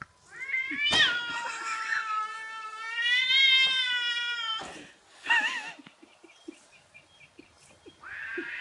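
Domestic cat yowling: a long drawn-out, wavering call of about four seconds, then a short wobbling meow about five seconds in, and another long call starting near the end.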